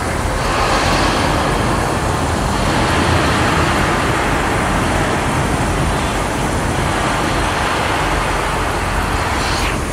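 Falling water of a staged indoor rainstorm: a loud, steady rushing of rain pouring onto the street.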